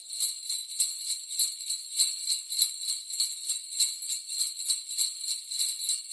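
Jingle bells shaken in a steady rhythm, about three shakes a second.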